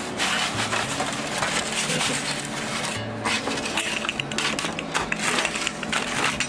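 Repeated light metallic clinks and knocks of kitchen tools, with a thin aluminium pizza peel handled on a wooden counter.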